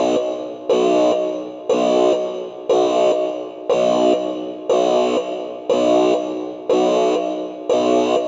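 Synthesized sci-fi spaceship alarm signalling weapons activated: a pitched electronic tone with many overtones, pulsing about once a second, each pulse starting sharply and fading away.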